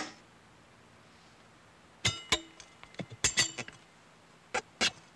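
Metal tyre lever clinking and ringing against a motorcycle wheel rim while a punctured tyre is pried off. After a quiet first two seconds come three pairs of sharp metallic strikes, about a second apart.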